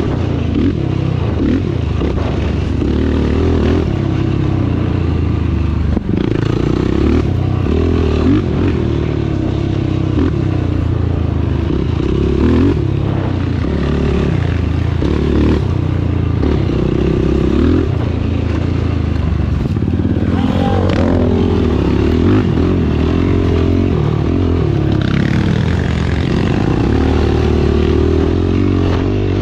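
Dirt bike engine being ridden hard in an off-road race, its revs rising and falling constantly, with occasional knocks and clatter.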